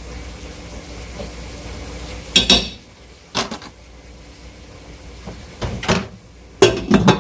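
Kitchen clatter: a few sharp knocks and clunks of things being handled, the loudest about two and a half seconds in and a quick cluster near the end, over a steady background hiss.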